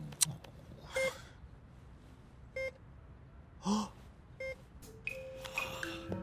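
Three identical short beeps, a second and a half to two seconds apart, with a short gasp between the second and third and a sharp click just after the start.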